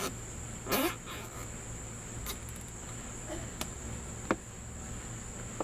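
Steady high-pitched cricket trill in the background, with a short rasp about a second in and a few sharp clicks after it, as zip ties are pulled tight through a cracked plastic fan shroud.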